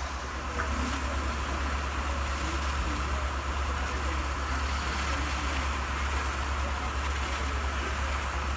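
Fire engine's diesel engine running steadily with a low hum, with faint voices in the background.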